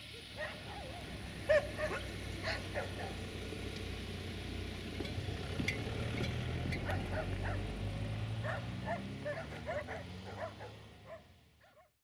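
Dogs barking and yelping repeatedly over a low, steady engine hum; the sound fades out at the end.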